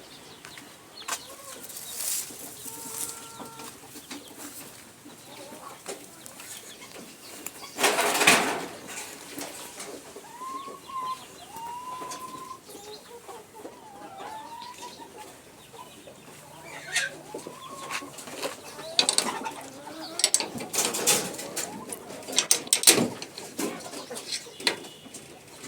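Chickens clucking, with a string of short rising-and-falling calls in the middle. A loud rustling burst comes about eight seconds in, and a run of sharp clicks and knocks near the end.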